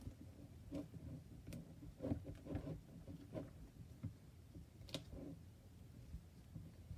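A spatula stirring thick glue-and-borax slime in a bowl: faint, irregular clicks and soft knocks, with one sharper click about five seconds in.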